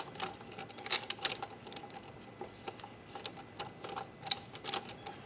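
Harbor Freight socket ratchet clicking in short, irregular runs as a bolt is turned, a few louder clicks about a second in and again past four seconds. The ratchet is stiff and does not ratchet easily.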